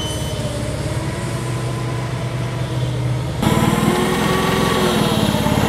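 Engine running, with an abrupt change about three and a half seconds in to a louder, rougher run with a rapid firing beat.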